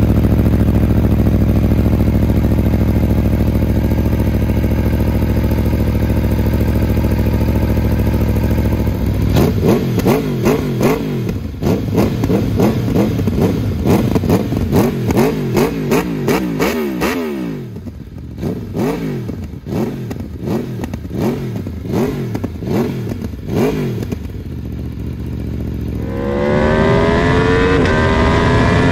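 Aprilia Tuono V4 1100 Factory's V4 engine through an SC Project SC1-R exhaust, idling steadily, then from about nine seconds in revved in a long run of quick throttle blips rising and falling in pitch, with crackles and pops between them. Near the end the motorcycle accelerates on the road, its pitch climbing.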